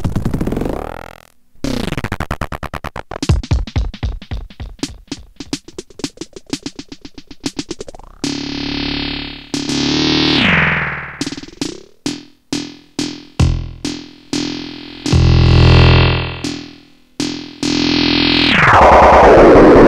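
Synth sounds run through a homemade PT2399-chip dub delay with its feedback pushed close to unity, so the echoes pile up into fast repeating trains with added fuzz and bend in pitch as the delay time is swept. Near the end, very short delay times give a loud, sweeping flanger-like sound.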